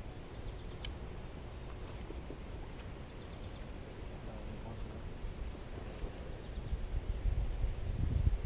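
Outdoor ambience: a low steady rumble that grows louder near the end, with a few faint short high chirps.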